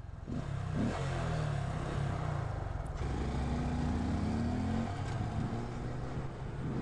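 2018 Honda Grom's 125 cc single-cylinder engine coming up suddenly to a steady, loud run as the bike pulls away, its note rising a little in the middle.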